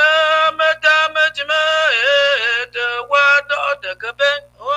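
A high-pitched voice singing a chant in quick repeated syllables, with short breaks between phrases, over a steady low electrical hum.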